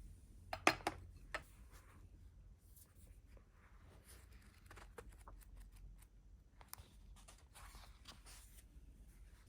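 Small kitchen handling sounds: a few sharp clicks and knocks in the first second and a half, then faint scattered taps and light rubbing.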